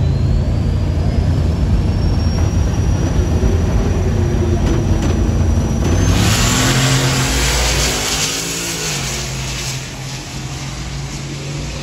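Pickup truck's engine rumbling at a drag-strip starting line under a thin high whine that rises steadily, then launching about six seconds in with a sudden loud burst. The engine pitch rises and falls as the truck pulls away down the track and the sound fades.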